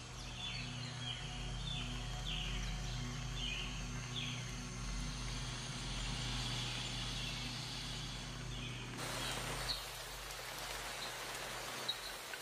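Wildlife ambience over a low steady drone. A run of short, falling, high chirps comes about two a second for the first five seconds, then an even rain-like hiss comes in suddenly about nine seconds in.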